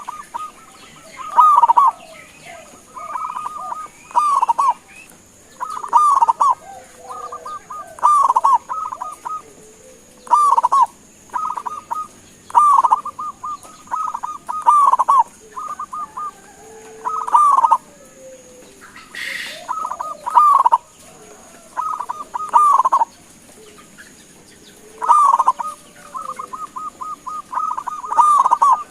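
Zebra dove (perkutut) singing its cooing song over and over: short phrases of quick staccato notes, about one every two seconds. A steady high-pitched whine runs underneath.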